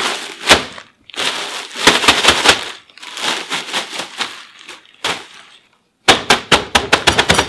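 Crackers crushed by hand inside a plastic zip bag: crinkling plastic and crunching crumbs in several spells with short pauses, fastest and densest near the end.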